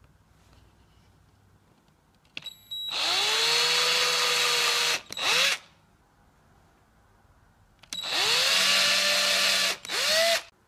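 Cordless drill with a cut-down 3/16-inch bit drilling holes into the rubber knobs of a bicycle tire. It makes two runs of about two seconds each, the first about two and a half seconds in and the second about eight seconds in. Each run rises in pitch as the motor spins up, holds steady, and is followed by a brief extra squeeze of the trigger.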